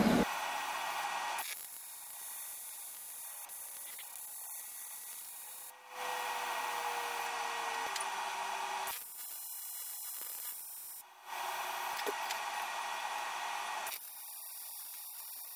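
TIG welding arc on aluminium, a steady hiss and buzz that steps up and down in level every few seconds while a small aluminium vacuum nipple is welded onto an aluminium pipe.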